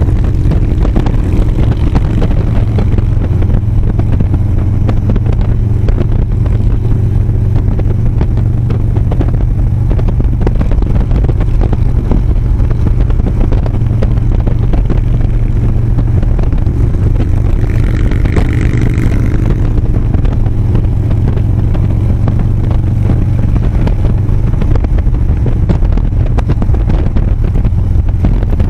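Harley-Davidson touring motorcycle's V-twin engine running steadily at highway speed, a low drone mixed with wind rush on the microphone. A short higher tone sounds about two-thirds of the way in.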